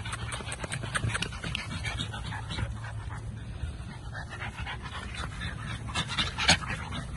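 American Bully puppy panting in a quick run of breaths, with one sharp click about six and a half seconds in.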